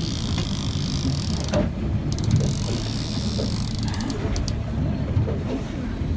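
Boat engine running at idle, a steady low rumble, with a rushing hiss that comes and goes and a few quick clicks.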